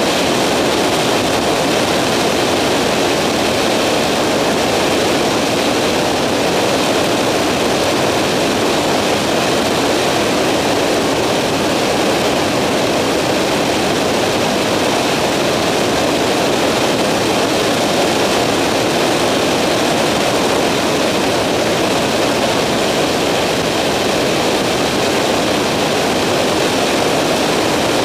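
Skyranger microlight's engine and propeller running steadily in flight, heard from on board as a loud, even rush of noise.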